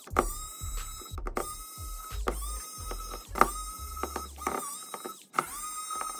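Electric precision screwdriver whirring in several short runs, stopping and starting as it turns the tiny screws of a phone's board cover, with a click as each run begins.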